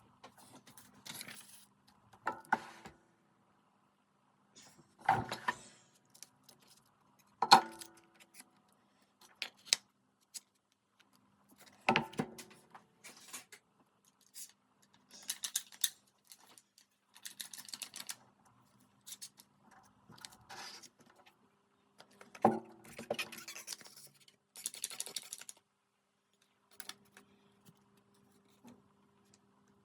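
Marquetry handwork: small wooden veneer pieces and tools picked up and set down with sharp, irregular clicks and knocks, between short scraping or cutting strokes across the wood.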